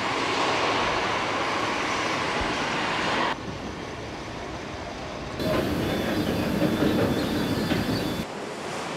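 Factory-floor machinery noise, a steady mechanical hiss and rattle. It drops suddenly about a third of the way in, jumps back louder with a faint high whine a little past halfway, and drops again near the end.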